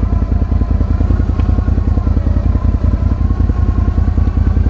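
Can-Am Outlander 570 ATV's V-twin engine running steadily at low revs, with an even, unchanging beat.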